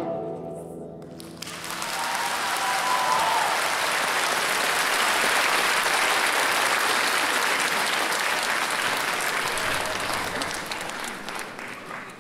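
The last notes of a guzheng ring out and die away, then a concert audience applauds, the clapping fading near the end.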